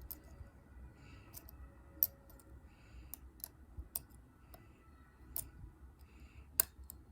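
A pick working the spring-loaded pins of a Bergland five-pin dimple-lock Euro cylinder under tension: scattered small metallic clicks and faint scraping, with a sharper click about two seconds in and another near the end.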